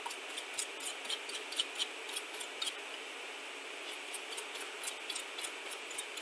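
Stiff acid brush scrubbing isopropanol over the solder side of a circuit board to clear away flux. It makes quick, irregular scratchy ticks over a steady hiss, with a short lull midway.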